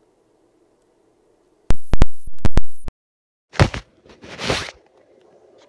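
Phone microphone being handled: after a stretch of dead silence, a run of loud crackles and clicks that clip, then two rubbing bursts about a second later.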